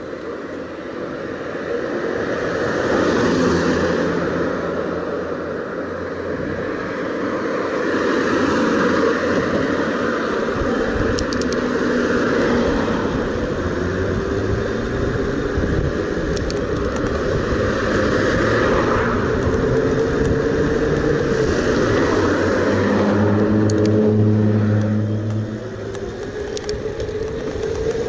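Electric mountain bike riding on a street as it picks up speed: a steady rush of wind and tyre noise, with faint humming tones that rise and fall. The humming is strongest a few seconds before the end, then the noise drops briefly.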